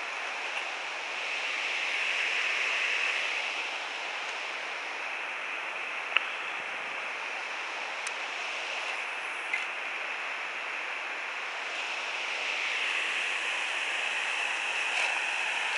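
Steady rush of flowing creek water, swelling a little twice, with a few faint clicks near the middle.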